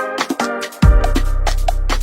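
Electronic dance music with a fast drum beat and synth chords; a deep bass comes in just under a second in.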